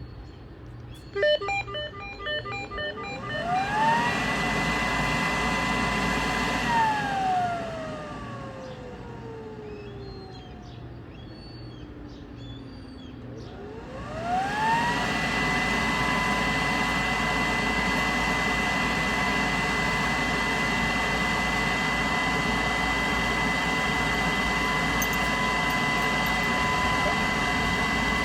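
Dust extractor without its housing, its open outlet hole sounding like a siren: a two-note whine rises as the motor spins up about four seconds in, holds briefly, then glides slowly down as the machine runs down. About fourteen seconds in it spins up again and holds a steady siren tone over the rushing of the air. Before the first spin-up there is a quick run of short beeps.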